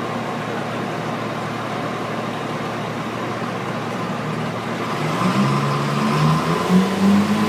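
Steady din of a busy dyno shop, then about five seconds in a diesel pickup's engine on the chassis dyno revs up, louder, its pitch rising in steps.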